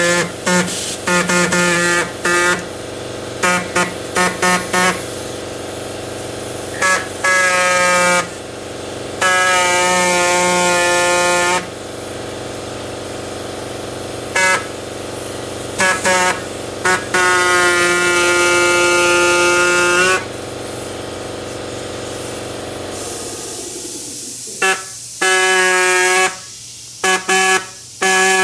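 Electric power tool cutting rubber lugs off a lawnmower tire, its steady-pitched buzz switching on and off as the trigger is pulled: quick blips and longer runs of a few seconds. A steady hum underneath stops about 23 seconds in.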